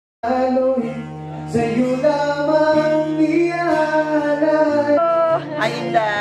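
A man singing a slow melody into a microphone over a musical accompaniment with steady bass notes.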